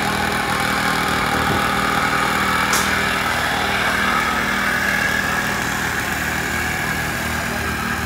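Engine of concrete-pouring machinery running steadily with an even low throb, with a brief high hiss about three seconds in.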